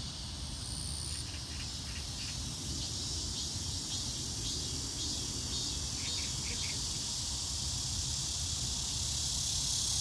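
Steady high-pitched chorus of insects with a low rumble underneath.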